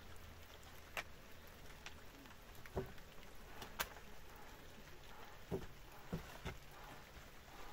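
A handful of faint, sharp clicks and taps, about six spread unevenly, over a low steady hiss.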